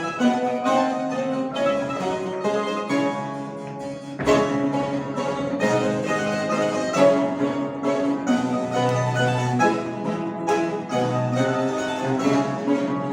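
Mandolin ensemble playing an instrumental piece, many plucked strings sounding together. A brief softer passage gives way to a loud accented chord about four seconds in.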